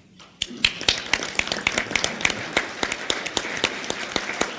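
Audience applauding, the clapping starting about half a second in and going on steadily.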